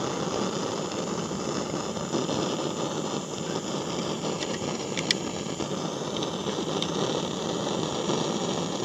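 Propane torch with a wide heat-spreader tip burning with a steady hiss, held against the hull to soften old adhesive letters. A couple of faint ticks come about halfway through.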